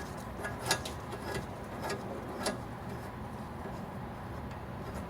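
About five light clicks and knocks of handling, spread over the first two and a half seconds, over a steady low background hum.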